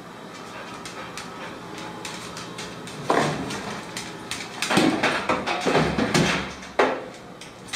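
Kitchen oven door pulled open by a dog tugging the dish towel hung on its handle, then let go: several knocks and rattles of the door, ending in one sharp clack near the end as it snaps shut.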